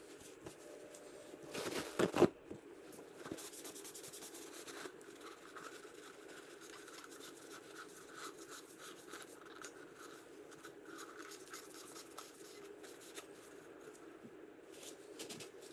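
Faint rubbing and scratching as the Audi's plastic oil filter housing is wiped clean by hand, with a couple of sharp knocks of the housing being handled about two seconds in.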